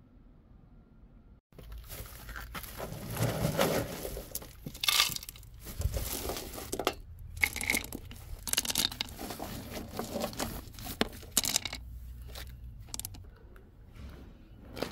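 Woven plastic sack rustling and crinkling as gloved hands handle and pull at it, in irregular scrapes and crackles that start about a second and a half in and die down near the end.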